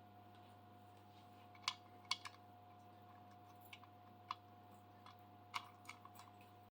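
Faint, scattered light clicks and taps of small kit parts being handled and fitted, about half a dozen spread irregularly over a low steady hum.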